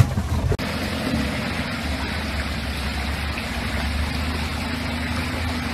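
Suzuki 4x4's engine running steadily at low revs over a steady hiss of stream water as it crawls over boulders.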